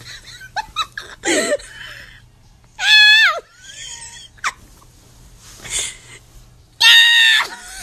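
Two loud, high-pitched cries, one about three seconds in and one near the end, each lasting over half a second, with softer short vocal sounds between them.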